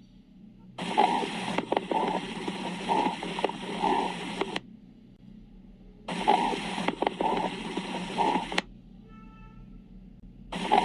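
Bowel sounds picked up through a stethoscope's diaphragm on the abdomen: a noisy, irregular rumble in three stretches that start and stop abruptly, about a second in, about six seconds in, and near the end.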